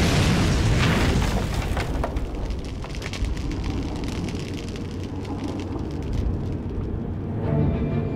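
Explosion in a film soundtrack: a loud low rumble with scattered crackles that slowly dies down. Tense orchestral music comes in near the end.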